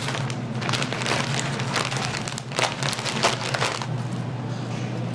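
Beef ribs sizzling and crackling on a hot grill, a dense run of pops over a steady low hum.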